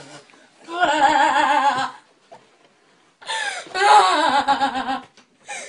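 A boy crying in long wailing sobs: two drawn-out cries with a shaking pitch, the first about a second in and the second starting about three seconds in, with a short quiet breath between them.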